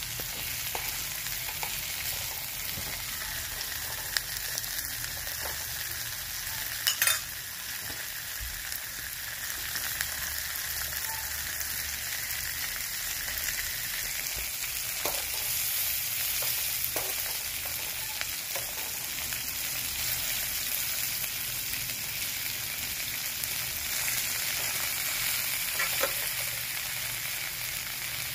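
Whole head-on shrimp sizzling in hot oil in a pan, a steady frying hiss. A few sharp clicks of the tongs against the pan, the loudest about seven seconds in.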